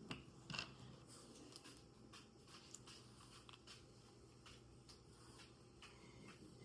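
Near silence: room tone with a faint low hum and a few faint, scattered light clicks and taps.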